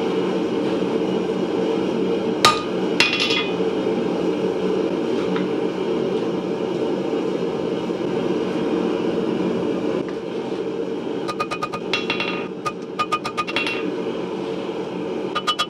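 Blacksmith's hammer striking hot chisel steel on an anvil while drawing it out: a single ringing blow about two and a half seconds in, a few more just after, then quick runs of ringing blows about eleven to fourteen seconds in and again at the end. A steady low rush of the running forge lies under it all.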